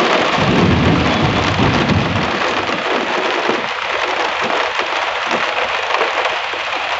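Heavy rain pouring steadily, with a low rumble of thunder during the first two seconds or so.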